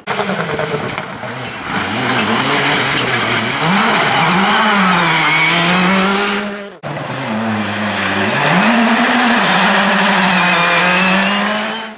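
Two Citroën C3 Rally2 rally cars passing one after the other under hard acceleration, their turbocharged four-cylinder engines near full revs. In each pass the engine note dips briefly and then climbs again, as the car lifts for the bend and powers out of it. The first car's sound cuts off abruptly about seven seconds in, and the second car follows.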